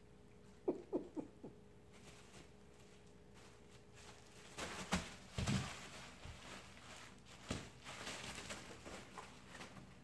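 Cats moving about and playing: a few brief squeaks about a second in, then scattered rustling with a couple of soft thumps around the middle and more crinkling near the end.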